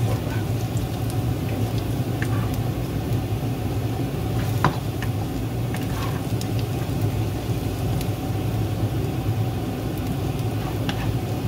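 Minced garlic sizzling in oil in a nonstick frying pan, stirred with a wooden spatula that taps and scrapes the pan a few times, loudest about halfway through. A steady low hum runs underneath.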